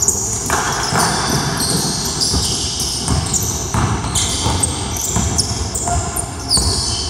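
Basketball bouncing on a hardwood gym floor as it is dribbled up the court, with sneakers squeaking sharply and often as players run and cut.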